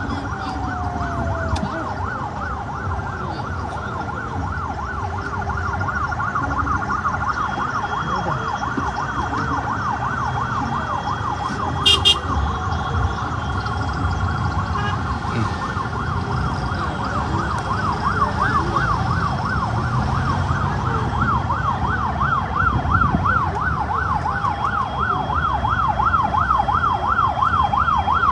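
Police vehicle siren on a fast yelp, its pitch sweeping up and down several times a second, over a low rumble of traffic. A single brief sharp knock about twelve seconds in.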